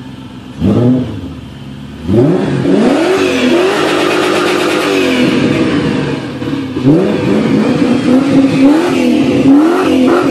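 1998 BMW E39 540i's 4.4-litre V8 revved through a Remus aftermarket exhaust: a short blip about half a second in, then from about two seconds in repeated revs, held high briefly, easing off near six seconds, and a run of quick blips after that.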